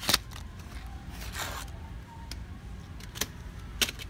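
Stiff plastic-and-card blister packs of small toy cars being handled: a few sharp plastic clicks, one near the start and two near the end, and a brief crinkling rustle about a second in.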